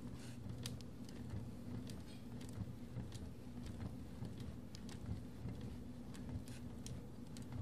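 Sparse, irregular light clicks over a steady low hum.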